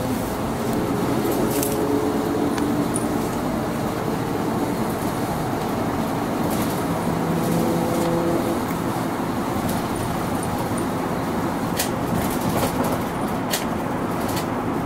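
Mitsubishi Aerostar one-step city bus on the move, heard from inside the passenger cabin: steady engine and road noise. A humming note fades out about eight seconds in, and a few sharp clicks or rattles come near the end.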